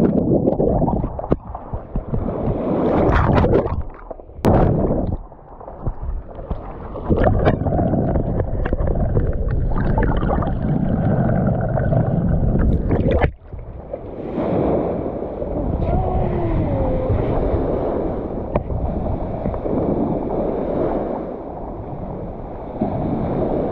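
Muffled sloshing and gurgling of lake water around a camera held at and under the surface, with splashes and sharp knocks as it breaks the surface.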